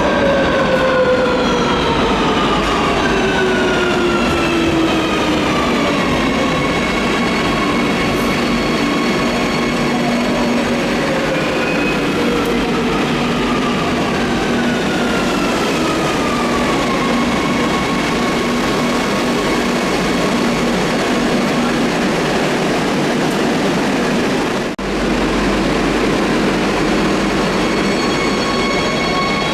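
Madrid Metro electric train in an underground station, its motors whining down in pitch in stages as it slows, over a steady rolling rumble. The whine then settles into steady tones, with an abrupt break about 25 seconds in.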